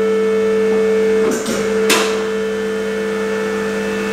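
Electric motor of a two-post vehicle hoist's hydraulic pump running with a steady hum, and one sharp click a little under two seconds in.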